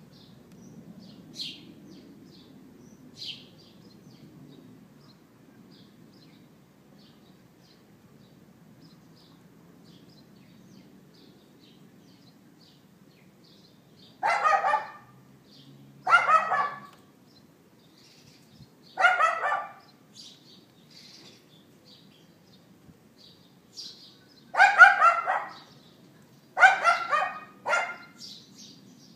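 Small dog yapping: about six sharp barks in the second half, a couple of seconds apart, the last few coming quicker. Small birds chirp faintly in the first half.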